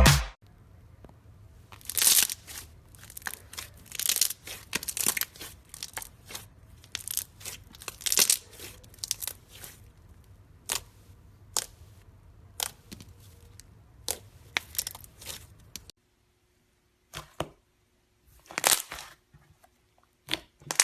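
Slime being squeezed and pulled by hand: irregular sticky pops, crackles and tearing sounds, a few each second, sparser in the last few seconds.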